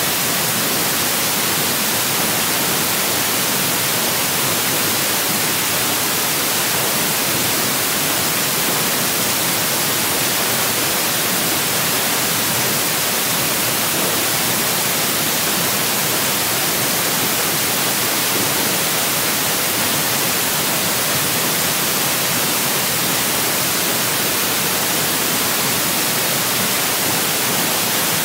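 Steady hiss of electronic static, even and unchanging, strongest in the high range.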